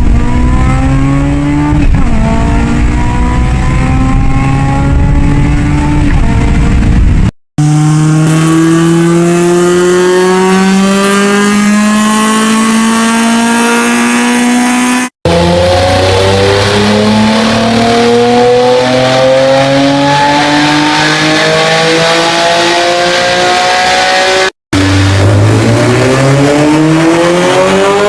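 Honda car engines accelerating hard under load, the engine note climbing steadily in pitch. Four separate recordings, each broken off by an abrupt cut.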